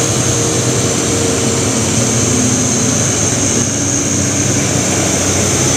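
Diesel engine of a heavy three-axle truck loaded with steel rods, labouring steadily as it climbs a steep hairpin grade, with a steady high-pitched whine over the engine note.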